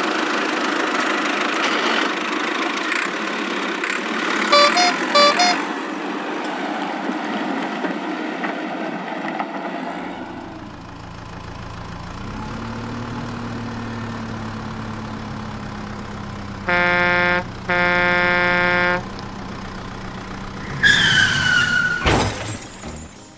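Cartoon truck sound effects: an engine running, a quick double horn toot about five seconds in, then a lower engine hum with two long truck-horn blasts, and a falling squeal near the end.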